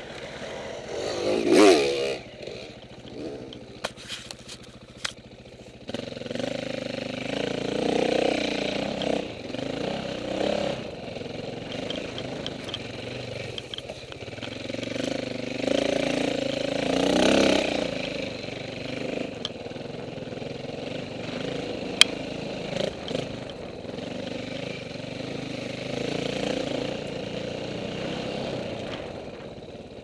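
KTM 450 single-cylinder four-stroke dirt bike engine revving up and down as it is ridden off-road, with occasional sharp knocks and clatter.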